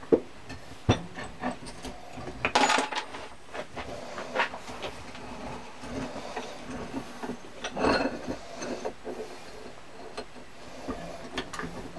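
Metal parts of a Record No. 5 bench vice knocking and scraping against each other as it is taken apart. The moving jaw and screw are worked loose from the body: a string of sharp knocks, with a longer scrape about two and a half seconds in and another about eight seconds in.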